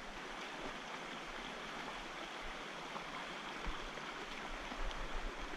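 Steady rushing of a jungle river's water over rocks and small cascades.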